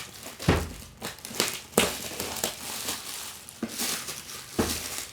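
Packaging of a fibre-optic cable being unwrapped by hand, crinkling and rustling in irregular bursts, with a few louder knocks as it is handled.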